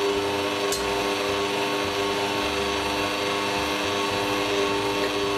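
Bosch stand mixer running at a constant speed: a steady motor whine of several held tones as its beater creams butter and icing sugar in a stainless steel bowl.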